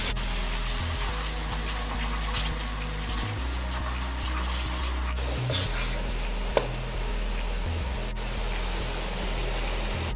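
Curry paste of ground onion, garlic and hot peppers with curry powder sizzling in oil in a nonstick wok while a wooden spoon stirs and scrapes it, a few sharper scrapes standing out. The seasoning is being fried down (bhunjayed) before the chicken goes in.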